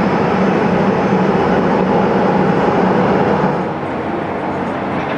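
Twin jet engines of a Boeing 757-300 climbing away after takeoff: a steady rushing noise that drops slightly in level about three and a half seconds in.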